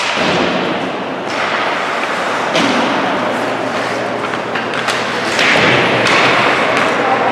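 Ice hockey play in an indoor rink: the puck and sticks knocking, with thuds that fit the puck hitting the boards, several times over the rink's steady din of skates and voices, which grows louder about five seconds in.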